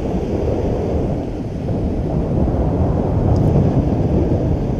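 Wind buffeting the microphone in a low rumble over the wash of surf breaking on the beach, growing a little louder about halfway through.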